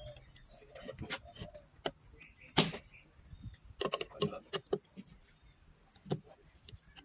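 Scattered clicks and knocks of needle-nose pliers and small metal trigger parts against a homemade speargun stock as the trigger mechanism is worked loose, with one sharp click a little over two and a half seconds in and a cluster of clicks around four seconds.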